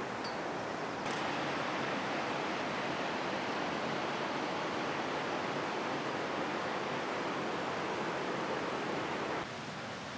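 Steady rushing water from the canyon below, an even hiss-like roar with no distinct events. It jumps louder about a second in and drops back near the end.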